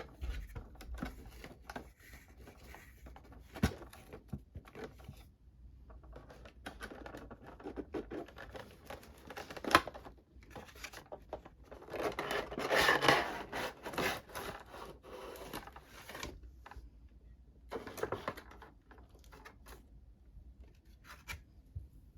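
Cardboard box and plastic packaging of a prize figure being handled and opened by hand: scattered clicks, scratches and rustling, with one sharp click near the middle and a louder stretch of rustling and crinkling just after it.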